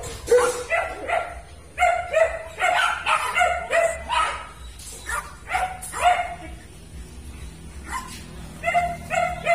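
Siberian husky yipping and barking in quick runs of short calls, each dropping in pitch, easing off past the middle and starting up again near the end.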